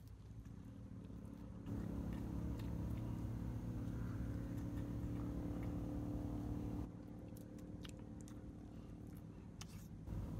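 A person biting and chewing fried chicken, with sharp clicks of lips and teeth on meat and bone, clearest near the end. Under it a steady low hum starts abruptly about two seconds in and cuts off about seven seconds in.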